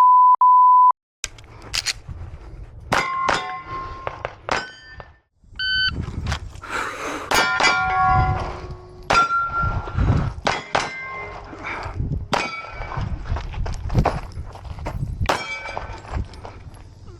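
A shot timer beeps at the start, then after a short pause a 9mm handgun fires a string of shots at steel targets, the plates ringing with a clang as hits land.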